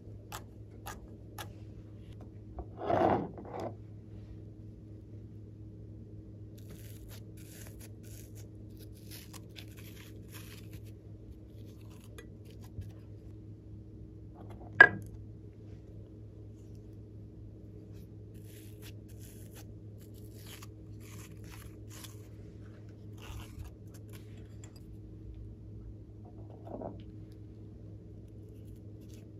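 Hands pressing and squishing slime in a glass dish, with a brief squelch about three seconds in and soft crackles later. A single sharp knock just before the midpoint is the loudest sound, all over a steady low hum.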